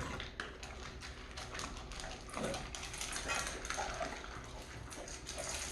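Dogs waiting for food: faint whines amid a run of small clicks and taps.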